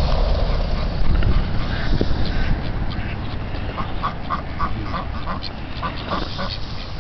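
Domestic ducks quacking: a quick run of short quacks from about four seconds in, over a steady low rumble.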